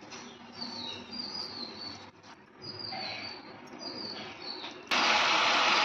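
Short, high, falling chirps repeat irregularly, like a small bird calling, over faint kitchen noise. About five seconds in, a steady, loud sizzle starts abruptly: the pan of carrot halwa cooking as the added sugar releases liquid.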